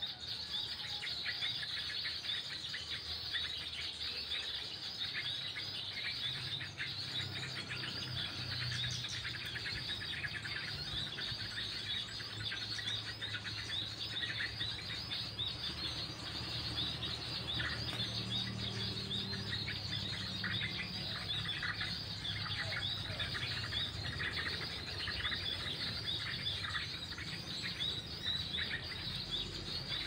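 Many quick bird chirps over a steady high-pitched drone of insects.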